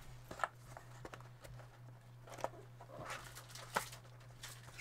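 Hands handling a trading-card box and its packaging: a few light separate taps and a brief rustle about three seconds in, over a steady low electrical hum.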